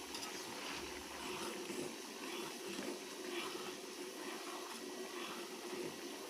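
Rice porridge simmering in a pot, with faint, scattered bubbling.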